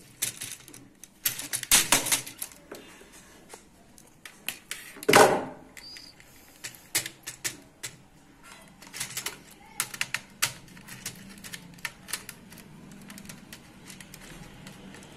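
Irregular plastic clicks, taps and rattles from wires and a screwdriver being worked into the terminals of a plastic modular switchboard, with a louder knock about five seconds in.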